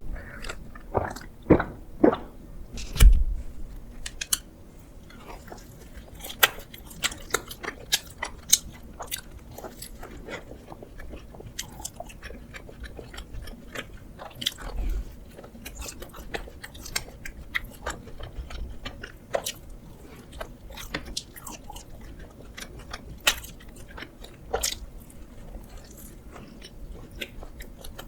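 A person eating donuts close to the microphone: bites and chewing with many small mouth clicks, plus a few louder knocks in the first few seconds.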